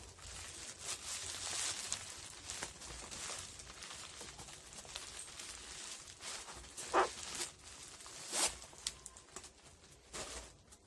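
Bubble wrap crinkling and rustling as a fabric case is slid out of a bubble-wrap sleeve, with a few sharper crackles, the loudest about seven seconds in.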